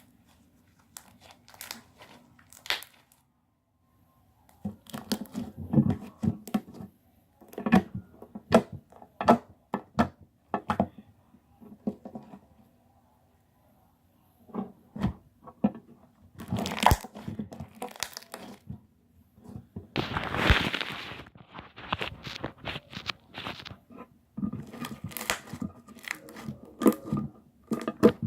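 Slime being squeezed and poked close to the microphone: many sharp clicks and pops at uneven spacing, with a longer stretch of crackling about twenty seconds in.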